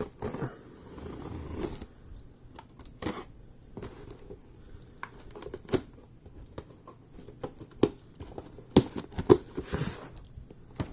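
Box cutter slicing through packing tape on a cardboard shipping box, with scraping, tapping and cardboard handling. A cluster of louder, sharp clacks and rips comes near the end as the box is pulled open.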